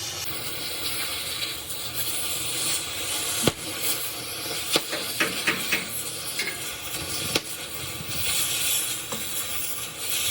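Scattered sharp clicks and knocks, several in a cluster in the middle, over a steady hiss of workshop noise, typical of tools being handled on metal parts.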